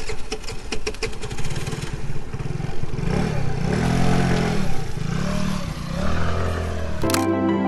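A fast rattling clatter, then an engine-like revving that rises and falls in pitch three or four times; music comes back in near the end.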